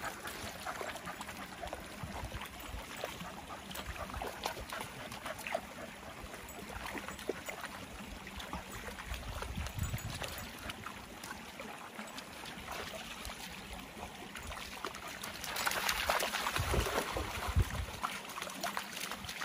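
Shallow river water trickling and running over stones, a steady rush that grows louder for a couple of seconds near the end.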